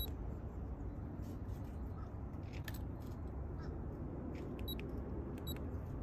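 Keypad of an RV Lock keyless compartment handle being pressed while a new code is programmed in: scattered button clicks and a few short, high electronic beeps, several close together near the end, over a steady low background rumble.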